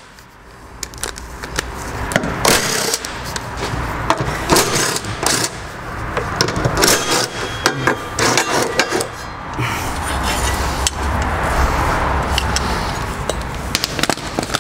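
Metal hand tools clinking, knocking and scraping on parts under a car on a lift, in irregular bursts. A low rumble comes in for a few seconds toward the end.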